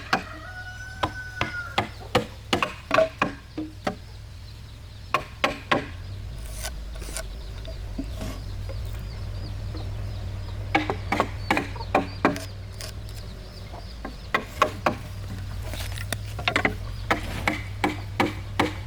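Repeated sharp knocks of a hammer or mallet striking wood, coming in quick runs of several blows a second with short pauses, while chickens cluck. A low steady hum comes in about six seconds in.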